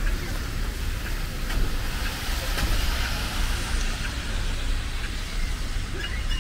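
City street traffic on a wet road: a vehicle's tyres hiss past, swelling and easing off through the middle, over a steady low rumble.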